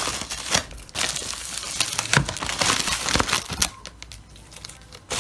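Packaging crinkling and rustling as it is pulled off a monitor stand, with sharp clicks mixed in; it quietens about three and a half seconds in.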